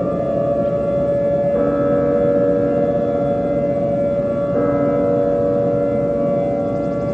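A loud electronic siren-like drone of several held tones. The chord steps to new pitches twice, once about a second and a half in and again about three seconds later.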